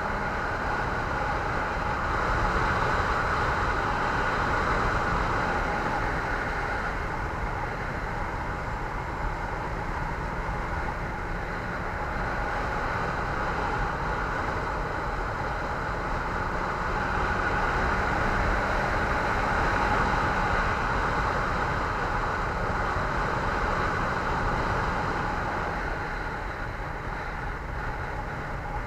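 Steady road and wind noise from a moving vehicle, with a low rumble underneath, swelling louder twice and easing back.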